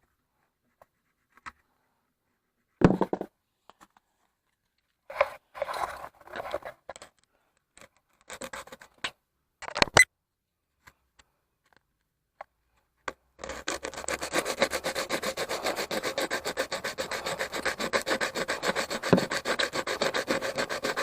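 Curb-rashed alloy wheel rim being filed down: scattered short rasping strokes of metal on metal, then from about two-thirds through a continuous, fast, even rasping.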